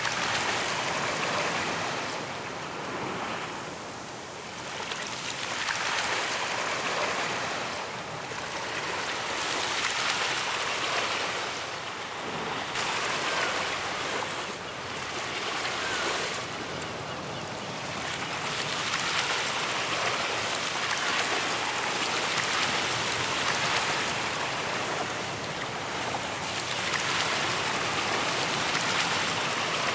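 Ocean surf breaking on a beach: a continuous hiss of waves that swells and eases every few seconds as each wave rolls in and washes back.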